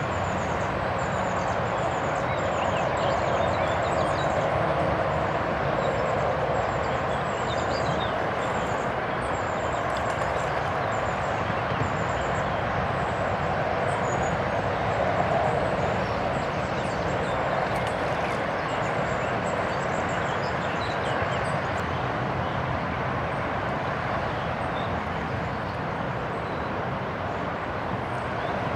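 Loud, steady road traffic noise, with a small bird chirping faintly and high above it, mostly in the first half.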